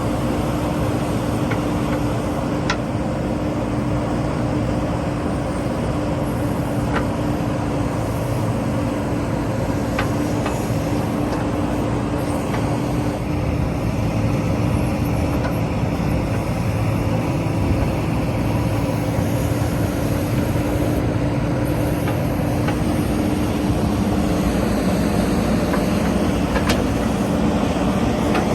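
JCB 3DX backhoe loader's diesel engine running steadily with a constant drone, with a few light clicks and rattles scattered through it.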